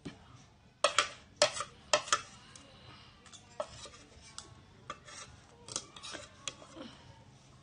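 Metal spoon clinking and tapping against a plate while the last of the noodle broth is spooned up. There is a quick run of sharp clinks in the first couple of seconds, then lighter, scattered taps.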